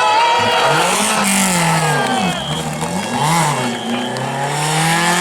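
Historic rally car's engine revving hard on a special stage, its pitch climbing and dropping several times as it accelerates and lifts off.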